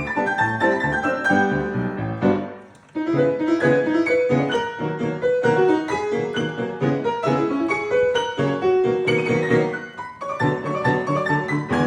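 Piano playing a lively piece of many quick notes, with a short break between phrases about two and a half seconds in.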